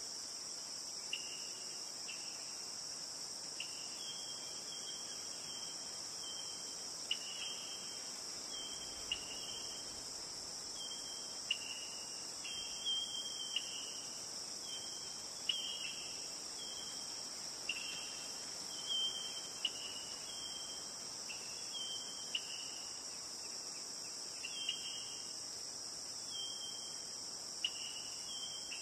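A steady, high-pitched insect chorus, with short high chirps over it every second or two.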